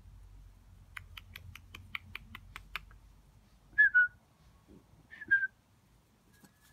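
A quick run of about ten sharp clicks, then a person whistles a pair of short falling notes, twice, to call the puppies.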